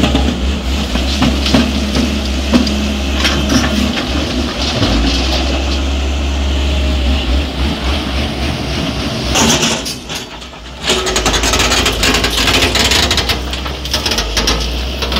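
Hyundai 210 crawler excavator's diesel engine running with a steady low drone, with knocks and rattles of earth and rocks as the bucket dumps into the tipper and digs. The sound drops briefly about ten seconds in.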